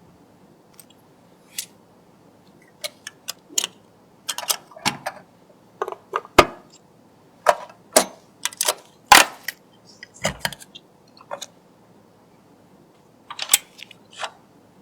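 Irregular sharp clicks, taps and small clatters of computer hardware being handled, a dozen or more, some louder knocks bunched in the middle and a few more near the end.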